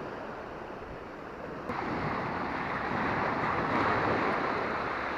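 Small waves washing up on a sandy beach of a calm, flat sea, the wash growing louder about two seconds in and easing again near the end.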